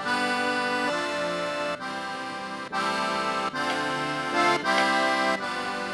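Accordion preset on a Yamaha Montage M synthesizer, played alone as a series of held chords that change about once a second.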